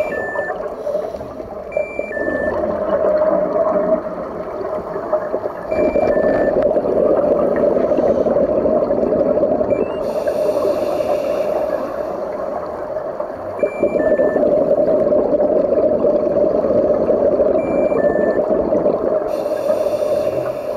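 Underwater sound from a scuba dive: a steady hum, with a diver's regulator exhaling a rush of bubbles about ten seconds in and again near the end. A faint two-note beep, high then lower, repeats every few seconds.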